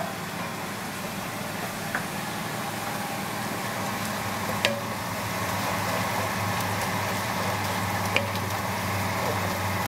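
Sausage and broccoli sauce sizzling in an enamelled cast-iron pot as it is stirred, with three light clicks of the utensil against the pot, over a steady low hum.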